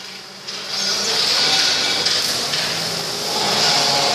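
Automatic circular-saw pipe-cutting machine running, a steady hissing machine noise that comes up about half a second in.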